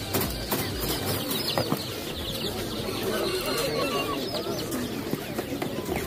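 Many caged chicks and chickens calling at once: a dense, overlapping chatter of short, high peeps with some clucking.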